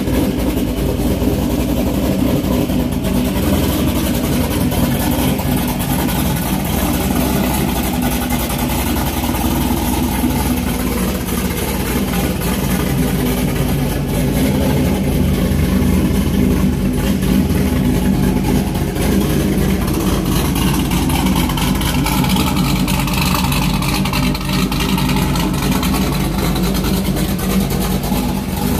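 1998 C5 Corvette's LS1 V8, fitted with a big Tick Performance stage 2 cam and not yet tuned, idling steadily.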